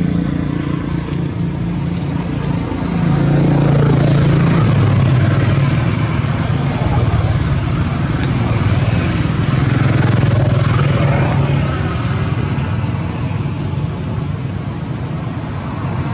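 A motor vehicle engine running nearby, a steady low hum that shifts in pitch and grows weaker in the last few seconds, over general outdoor noise.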